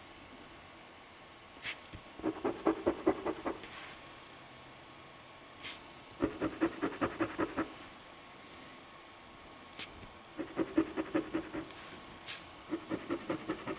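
A penny scratching the coating off a lottery scratch-off ticket in four short bouts of quick back-and-forth strokes, each bout opening with a sharp tap.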